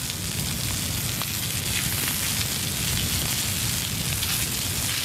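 Steady rushing hiss of a fire hose's water jet playing on burning hay bales, as a soundtrack effect.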